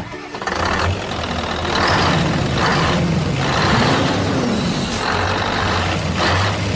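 A vehicle engine running with a low hum, with repeated bursts of hiss about once a second.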